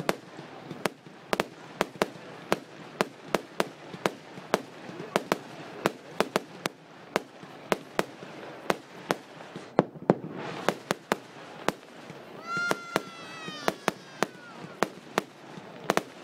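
Fireworks display: a rapid, irregular run of sharp bangs and cracks, several a second, over a steady crackling haze. A drawn-out falling tone sounds about three-quarters of the way through.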